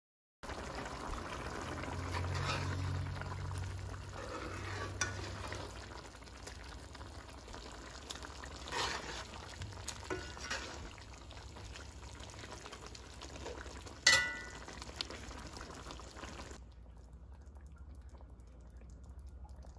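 A spoon stirring a pot of simmering spinach (callaloo) and chicken stew: a steady sizzling hiss with scattered scrapes and clinks, and one sharp clink of the spoon against the pot about two-thirds of the way through. The sizzle cuts off near the end, leaving only a faint low hum.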